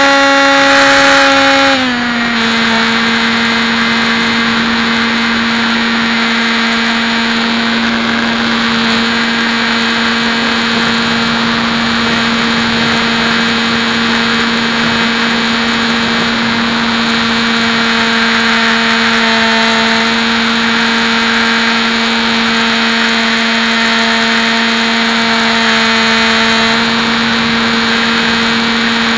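Hobby King Bixler's electric motor and propeller, heard from the onboard camera, whining steadily over a hiss of wind. About two seconds in the pitch drops as the motor slows, then holds steady.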